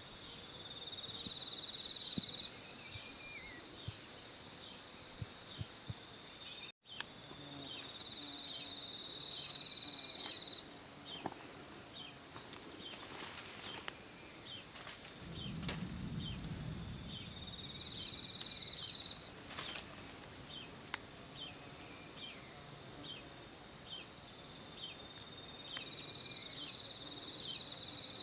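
Steady, high-pitched chorus of insects, crickets among them, with a repeated two-second call over it and scattered small clicks. A brief low rumble comes about halfway through, and the sound cuts out for an instant about seven seconds in.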